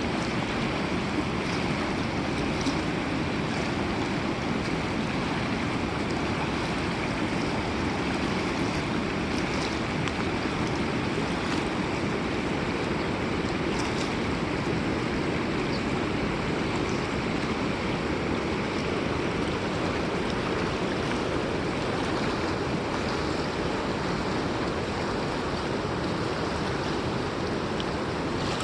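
River water rushing steadily, with no let-up.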